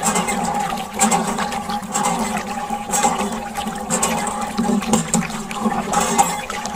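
A thin stream of water pouring from a small bottle onto plastic toy trucks and wet sand, splashing steadily, with brighter surges about once a second.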